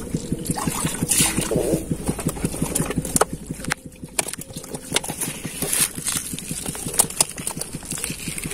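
A small engine running steadily with an even, rapid pulse. Over it come wet squelches and splashes as a hand digs in shallow mud and water.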